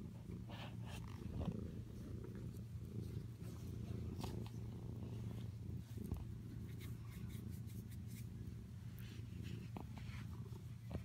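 A cat purring steadily right at the microphone, with scattered rustles and brushes as its face and fur rub against the phone.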